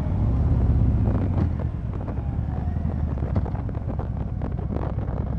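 Harley-Davidson Fat Boy 114's Milwaukee-Eight 114 V-twin running at road speed through Vance & Hines Eliminator 300 exhaust pipes, with wind buffeting the microphone. The engine note drops a little about two seconds in.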